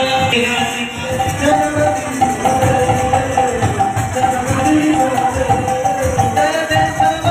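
Devotional kirtan music: singing over a steady drum beat and jingling, ringing hand percussion.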